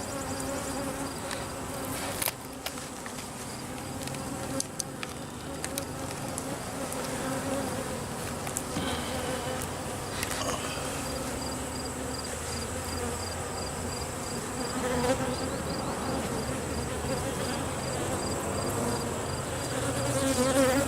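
Honey bees buzzing around an opened hive, a steady hum, with a few sharp clicks and knocks between about two and six seconds in and again near ten seconds.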